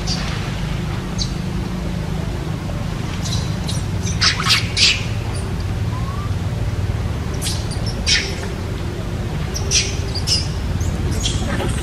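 Short high squawks and chirps from animals, a cluster of them about four seconds in and a few more later, over a steady low rumble.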